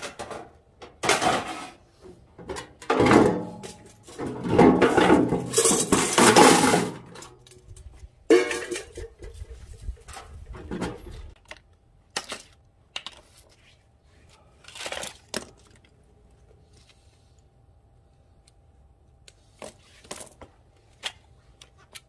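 Loose scrap-metal parts clattering and clanking as they are tossed into a stripped microwave oven's sheet-steel casing, a run of loud clangs through the first seven seconds. Then a sharp clank about eight seconds in and a few lighter clicks as small parts are worked on with pliers.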